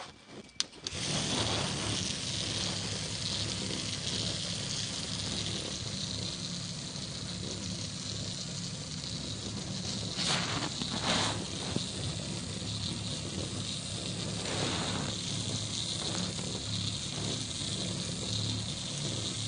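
Small toy DC motor with an off-centre weight running steadily after a click of the switch just under a second in, shaking the scribbling robot so that its pen legs rattle and tap on the paper.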